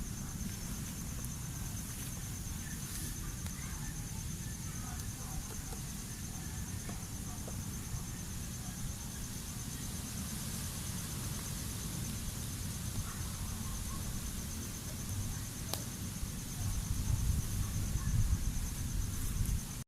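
Insects trilling steadily on one high, continuous note over a low rumble that grows louder near the end.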